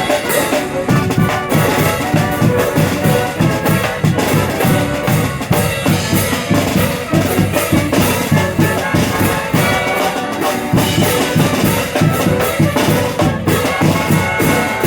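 A street band playing live: brass horns over a steady, driving beat of drums.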